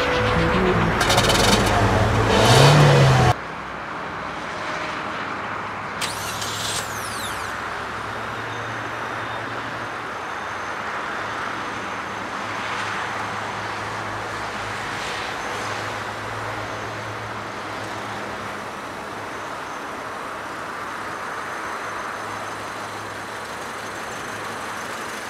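Electronic dance music for the first three seconds, cutting off abruptly. Then a steady outdoor ambience of low vehicle rumble, with a low drone that comes and goes.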